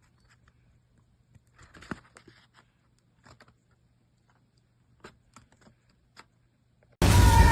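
Faint paper handling: scattered light taps and short rustles, with a brief rustle about two seconds in. Loud music cuts in abruptly near the end.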